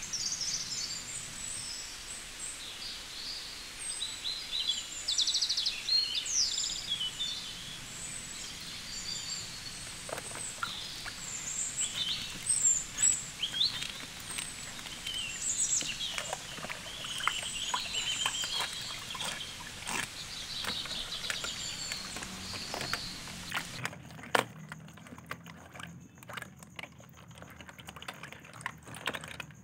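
Many quick, high chirps and squeaks over a steady background hiss, like an added animal sound effect. From about ten seconds in, sharp clicks of plastic toy figures being handled come through. Near the end the hiss and chirps stop and only the clicking is left.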